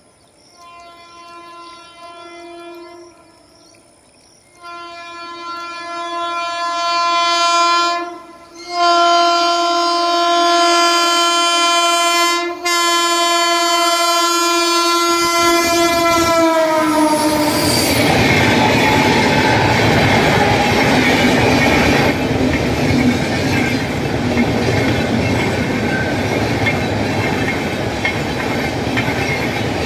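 Indian Railways locomotive horn sounding in short toots, then a long loud blast as the train approaches at full speed. Its pitch drops as the locomotive passes, about sixteen seconds in, and then comes the steady rumble and clatter of the passenger coaches rolling past.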